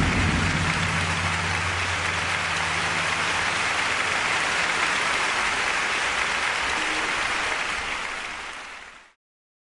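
Audience applauding steadily at the end of a live play, with a low held musical note dying away under the clapping in the first few seconds. The applause fades out near the end and then cuts off to silence.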